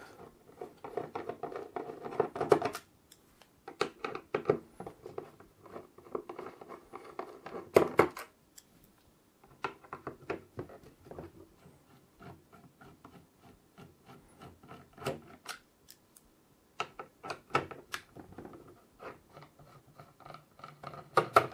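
Crosshead screwdriver backing out the screws of the AM4 mounting brackets on a motherboard: irregular small clicks and short scraping bouts as the bit turns in the screw heads, with a few brief pauses between screws.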